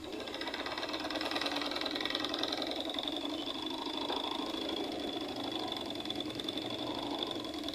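Small battery-powered DC motor spinning a CD disc, running steadily with a thin high whine and a fast, fine ticking.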